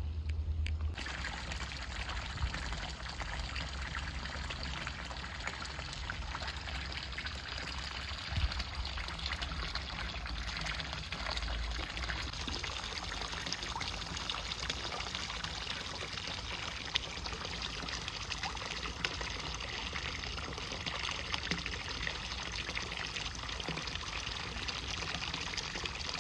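Water pouring in a steady stream from a metal pipe spout of a stone village fountain into its trough, splashing on the water's surface. The pouring starts about a second in, after a brief low rumble.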